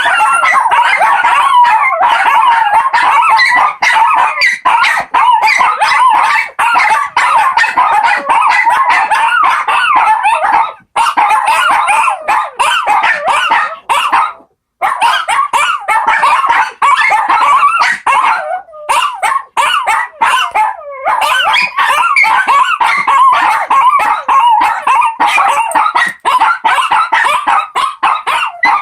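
Four Shih Tzus howling together, several wavering voices overlapping in a continuous chorus, with a few brief pauses.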